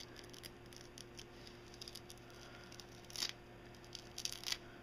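Cloth diapers being handled: faint rustling of fabric with small ticks, a louder rustle about three seconds in and a short cluster of them near the end.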